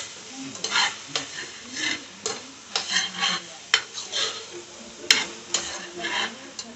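A spoon stirring sliced okra in a pot, scraping the pan in repeated irregular strokes, with a sharp clack about five seconds in, over the sizzle of the okra frying on high heat to cook out its slime.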